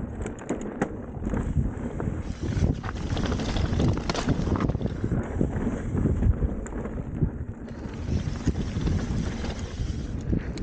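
Mountain bike descending a dirt trail at speed: wind rushing over the camera microphone and tyres rumbling, with frequent short knocks and rattles from the bike over rough ground.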